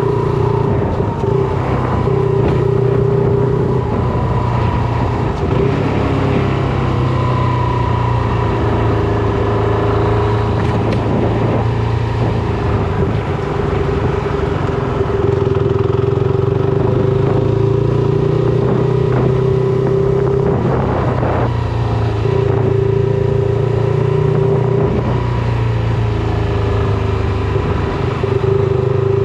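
Shineray SBM 250S motorcycle engine running steadily while riding, its pitch shifting slightly now and then with the throttle.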